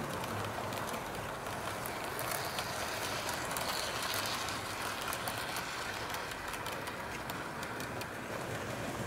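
Model train running along the track: a steady rolling noise scattered with many quick clicks from the wheels on the rails.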